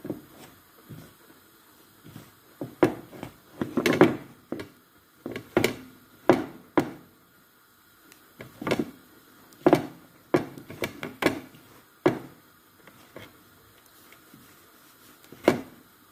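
Hands working butter into flour in a large bowl: irregular dull thumps and scuffs as the dough is pressed and mixed, roughly one a second, busier about a third of the way in and again past the middle.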